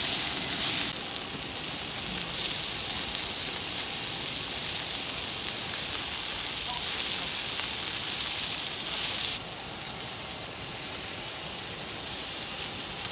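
Meat sizzling as it cooks, a steady hiss; about nine seconds in it cuts suddenly to a quieter, steady hiss.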